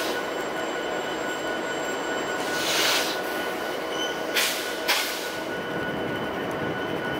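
Diesel-electric locomotives of a stopped CN freight, led by EMD SD70M-2 No. 8010, idling with a steady rumble and a thin high whine. A rush of hiss comes about two and a half seconds in, and two short sharp hisses follow near the five-second mark.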